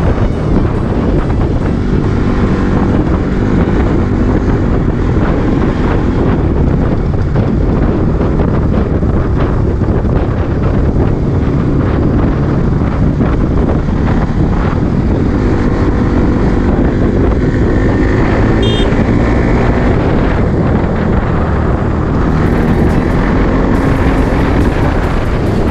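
Bajaj Pulsar NS200's single-cylinder engine running at highway speed, heard under heavy wind rush on the camera's microphone. A short high tone sounds about two-thirds of the way through.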